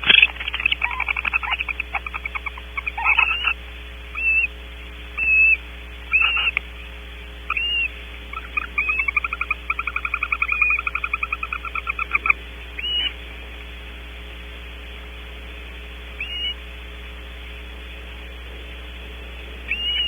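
Barn owls giving rapid twittering call series, the chittering calls of a pair mating, with single short chirps in between and a few more later, spaced several seconds apart. A steady electrical hum runs underneath.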